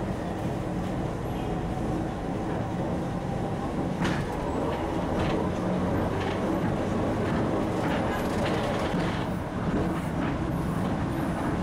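Vintage tram running, heard from inside the passenger car: a steady low rumble with scattered knocks and rattles, a little louder from about four seconds in.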